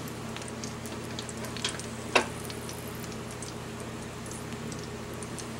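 Ears of corn on the cob frying in oil in a skillet: a steady sizzle with scattered small crackles and pops, and one louder snap about two seconds in.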